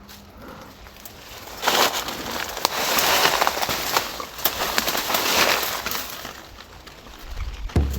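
Dry leaves and brush crunching and crackling as someone pushes through dry undergrowth on foot. It starts about a second and a half in and dies down near the six-second mark.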